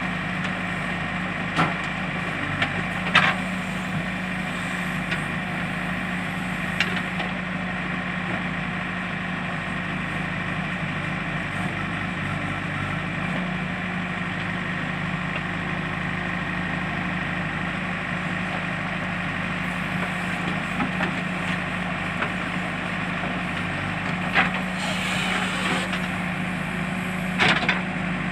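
JCB backhoe loader's diesel engine running steadily under work, with a few sharp knocks in the first seven seconds and two short clattering, scraping noises near the end.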